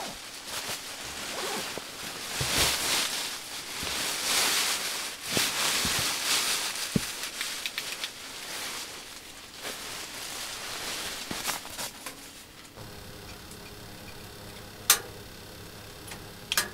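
Sleeping bag and nylon tent fabric rustling in uneven bursts as a camper settles into bed. About thirteen seconds in, this gives way to a wood stove fire burning quietly, with two sharp crackles near the end.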